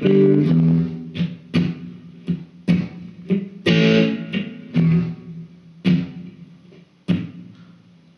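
Electric guitar playing a slow blues fill: about a dozen picked notes and chords, each ringing out and dying away, with the last one a second or so before the end.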